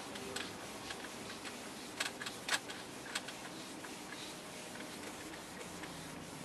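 Whiteboard eraser wiping a whiteboard: faint rubbing with scattered light taps and clicks, the strongest around two to two and a half seconds in.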